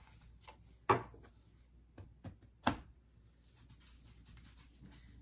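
A few sharp taps and clicks of a deck of tarot cards being handled over a tabletop, the loudest about a second in and again near three seconds in.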